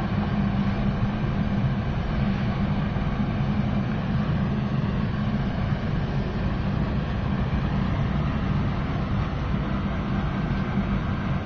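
Biomass gasifier furnace running under test: a steady, loud, low roar from its burner flame and blower, with a constant low hum.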